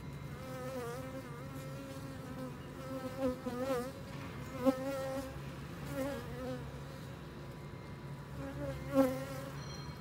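Honeybees buzzing over an open hive: a steady hum of the colony, with single bees flying close past and their buzz wavering up and down in pitch. The loudest close passes come about halfway through and near the end.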